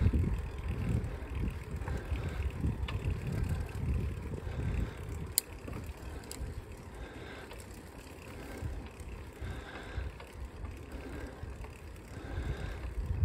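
Riding a bicycle on asphalt: wind buffets the microphone in gusts over a low rumble of the tyres, heaviest in the first few seconds, with a single sharp click about five seconds in.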